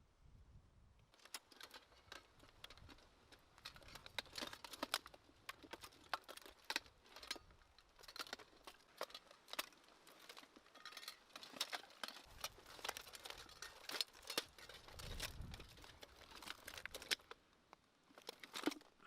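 Quick, irregular light clicks and taps, several a second, starting about a second in, from small hard objects knocking together.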